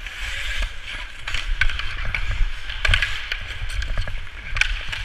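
Ice-hockey skate blades scraping and carving on rink ice, with a series of sharp clacks from hockey sticks and the puck. Under it runs a low rumble of wind and movement on a helmet-mounted camera.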